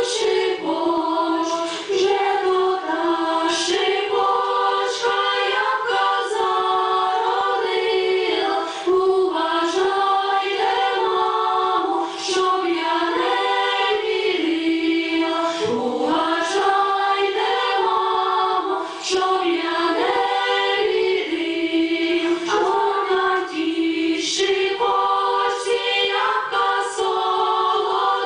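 Women's choir singing a Ukrainian folk song unaccompanied, several voices in harmony.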